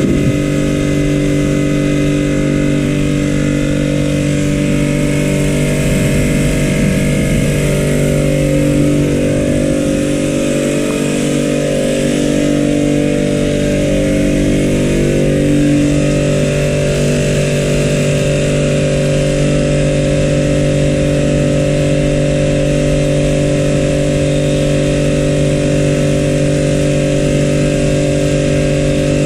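A machine running steadily, a continuous even hum that holds one pitch without change.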